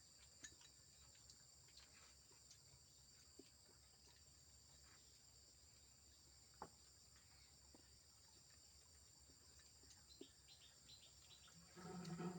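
Near silence with a faint, steady high insect drone, like crickets, and scattered small clicks; a short pitched sound comes near the end.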